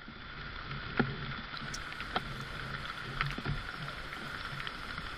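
Rain falling steadily in forest, with scattered single drops tapping sharply, one loud tap about a second in.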